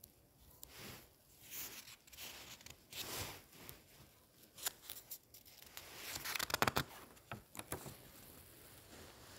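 Paper rustling and crackling as the pages of a printed book are handled and turned, with a quick run of sharp crackles about two-thirds of the way in.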